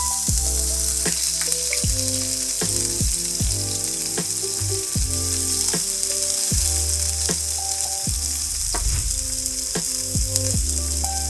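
Filet mignon steaks searing in very hot oil in a frying pan: a steady sizzle throughout.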